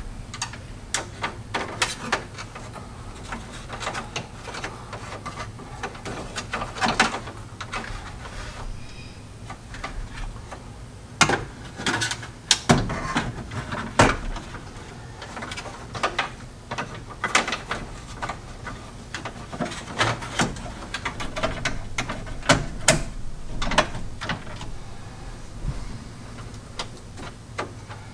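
Hard plastic instrument-cluster bezel of a third-generation Camaro being handled and held against the dashboard: irregular clicks, knocks and light rattles, heaviest about halfway through and again later on.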